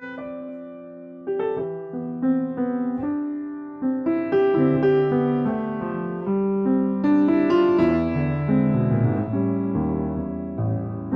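Solo piano playing a slow, gentle piece of sustained chords and single notes.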